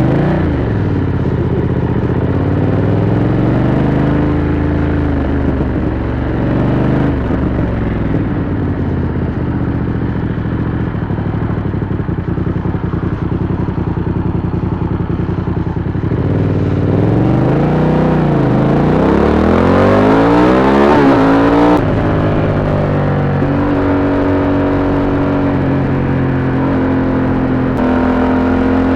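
BMW F 900 R parallel-twin engine heard through an SC Project SC1-R carbon silencer with its dB eater fitted, pulling and revving under way. The pitch rises and falls with throttle, climbs through several quick upshifts past the middle, then settles to a steadier note near the end.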